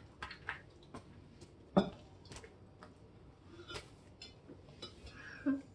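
Fluffy glue slime with shaving cream worked in, being squeezed and stretched by hand against a stone countertop, giving irregular sharp clicks and pops, the loudest about two seconds in.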